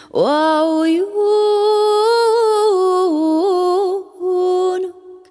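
A woman singing unaccompanied: a long note that slides up into pitch at the start and is held with small ornamental turns, breaks off about four seconds in, then a short further note.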